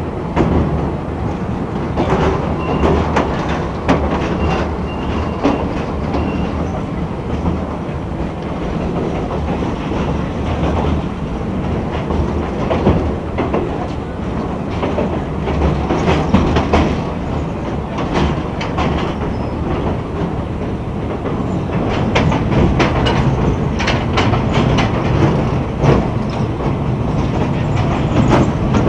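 Passenger train running, heard from inside a carriage at an open window: a steady rumble with the wheels clacking over rail joints, getting a little louder in the last several seconds.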